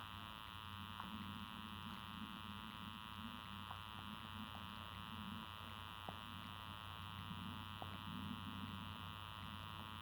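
Faint steady electrical hum with a few faint ticks.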